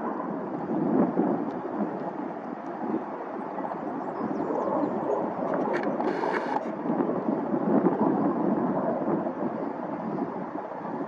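Aircraft engine rumbling steadily. About six seconds in there is a brief high-pitched tone.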